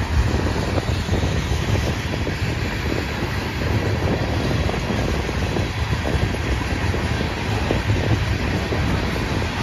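Freight cars of a manifest train, tank cars and flatcars, rolling steadily past: a continuous low rumble of steel wheels on the rails with many light clicks.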